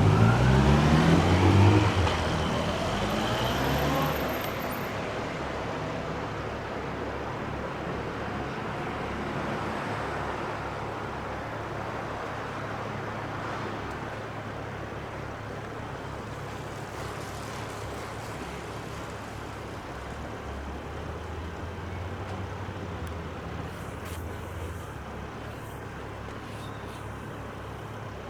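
A vehicle engine accelerating away, its pitch rising, shifting up about two seconds in and fading by about four seconds. Steady road traffic follows.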